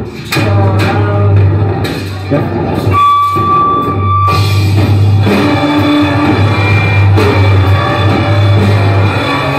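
Live rock band playing loud: guitar and bass over a drum kit. About three seconds in the low end drops away for a moment under a single held high note, and the full band comes back in about a second later.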